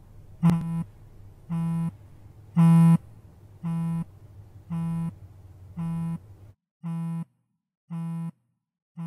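Mobile phone vibrating on a wooden table with an incoming call: short low buzzes about once a second. The background room noise drops out about six and a half seconds in, and the buzzing goes on.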